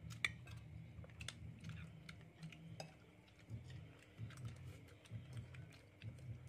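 Metal spoons and forks clinking and scraping faintly against ceramic plates and bowls as people eat, in scattered light clicks over a low hum.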